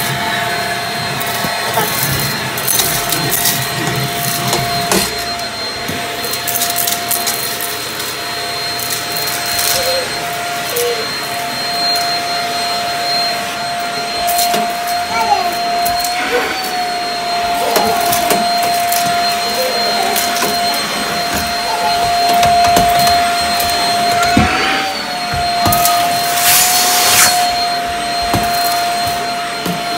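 Bissell vacuum cleaner running with a steady motor whine while sucking up crunchy debris, the bits crackling and clattering as they go up the wand. The motor's pitch wobbles briefly twice, about halfway through and again near the end.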